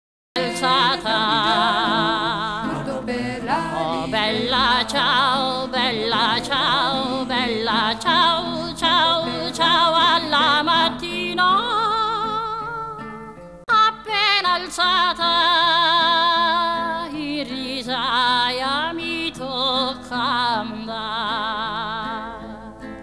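Music: a solo voice singing long, held notes with strong vibrato over an accompaniment, starting right after a moment of silence and briefly dropping away about halfway through.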